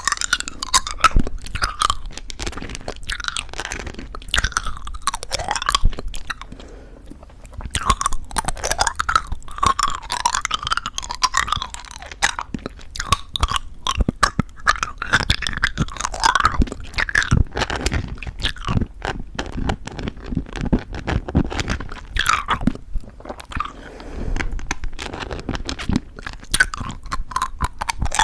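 Close-miked chewing of plum Happy Jelly chewy candies with a crisp coated shell: crunching of the coating mixed with wet, sticky mouth sounds. There is a brief lull about six seconds in.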